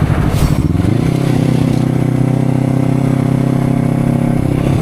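Honda CBR250RR engine through an aftermarket Akrapovic-style exhaust, revving up over the first second and then held at steady high revs before easing off slightly near the end.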